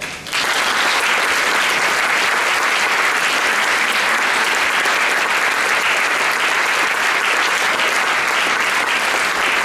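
Audience applauding steadily, a dense patter of many hands clapping that swells in about a third of a second in, at the close of a talk.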